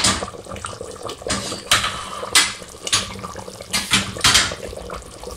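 Goat-trotter gravy boiling hard in an open pot, bubbling and spluttering in irregular bursts.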